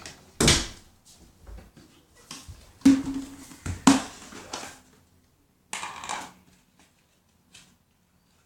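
Slime being handled and squeezed by hand: a series of short, noisy squishing bursts, the loudest just under a second, three and four seconds in.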